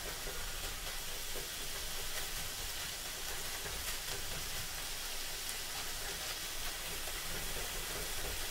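Food sizzling steadily in a frying pan as it is stirred with a wooden spatula, with a few faint scrapes of the spatula against the pan.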